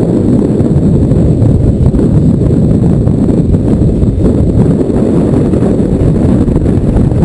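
Wind buffeting a camera microphone at sea: a loud, steady low rumble with no breaks.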